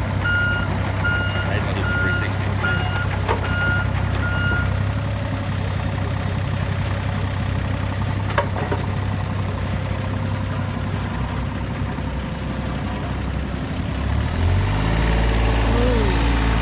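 Excavator engine running steadily while its warning alarm beeps about twice a second, stopping after about five seconds. Near the end the engine note changes and grows a little louder.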